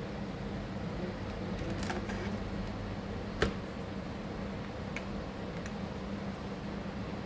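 Small sharp clicks and taps from handling laptop parts and tools, the loudest about three and a half seconds in, over a steady low hum.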